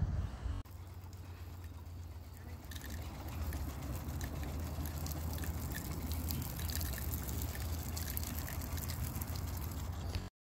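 Water spraying steadily from a garden hose nozzle, pressurised by an RV water pump, over a steady low hum; the spray grows a little louder about three seconds in.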